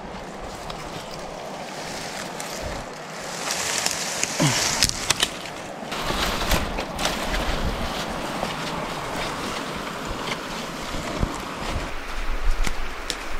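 Dry dead branches and brush rustling as they are handled and pushed aside while gathering firewood. Frequent small clicks and snaps of twigs come through the rustling.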